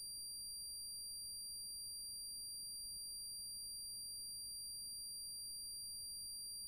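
A faint, steady, high-pitched electronic tone that holds one pitch without a break, over a faint low rumble.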